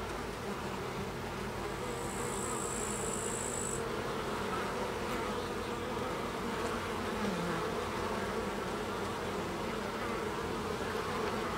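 Many Carniolan honey bees buzzing steadily as they fly in and out of a hive entrance.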